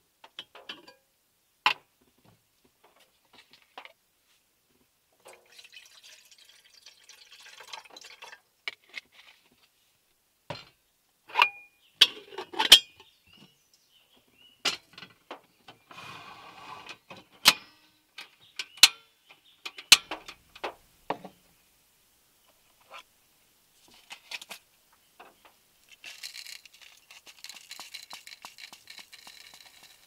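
Kettle-making sounds at a portable gas stove: water poured into a small enamel kettle, with clinks and knocks as the kettle and bottle are handled, then several sharp clicks at the stove and a steady soft hiss near the end.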